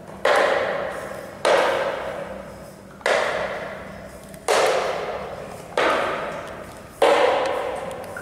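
A slow, even series of loud hits, one about every second and a half, each ringing away with a long echo before the next.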